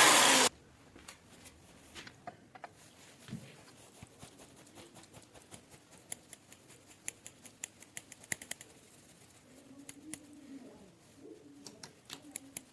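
A loud, steady motor whir cuts off abruptly about half a second in. Faint, scattered sharp clicks and light metallic ticks of small tool handling follow. Near the end a pigeon or dove coos faintly.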